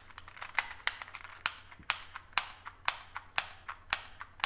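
Keys of an IBM 93Y1211 point-of-sale keyboard being pressed one after another. Each press makes a sharp, loud click, about two a second, with fainter clicks between. The keyboard uses a resistive film pad, not mechanical switches.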